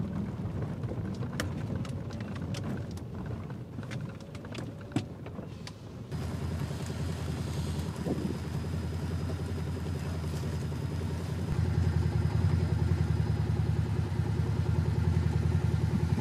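Vehicle driving sounds: first a cabin rumble with scattered small clicks and rattles, then, after a sudden change, the steady drone of a side-by-side UTV's engine running, which grows louder about two-thirds of the way through.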